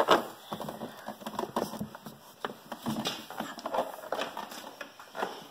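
Irregular light clicks, taps and scrapes of a metal bolt being poked and worked against the hard plastic body of a ride-on toy, with one sharper click at the start; the bolt is not lining up with its hole.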